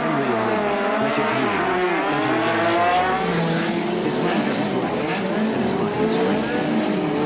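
A pack of 1987 Formula One cars racing, several engines revving at once, their pitches rising and falling and crossing over one another.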